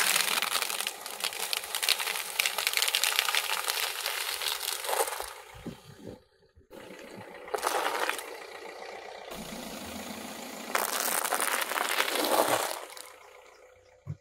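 Dry spaghetti sticks snapping and a brick of floral foam crunching under a car tyre: a long, dense crackling for about five seconds, then two shorter bursts of crackling.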